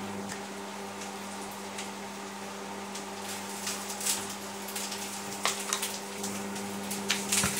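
Breaded tofu slices sizzling in hot frying fat in a pan, with light clicks and scrapes of a fork against the pan from about three seconds in as the pieces are turned. A steady low hum runs underneath.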